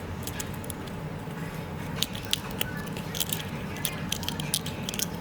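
A series of light, sharp clicks and taps from small hard tools being handled on a repair bench, a dozen or so in the second half, over a steady low hum.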